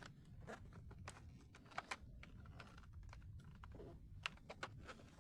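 Faint, scattered plastic clicks and taps: a toy foam blaster being handled and fiddled with while trying to free a part from it.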